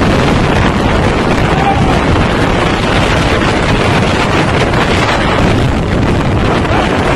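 Strong storm wind buffeting the microphone: a loud, steady rush of wind noise.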